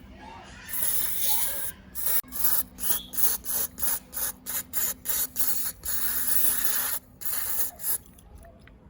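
Abrasive rubbing by hand in quick back-and-forth strokes, about three a second through the middle, with steadier stretches of rubbing before and after and a quieter end.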